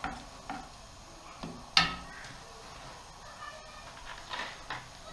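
Spoon stirring and knocking in a large steel cooking pot, a few scattered clicks and knocks with one sharp knock about two seconds in.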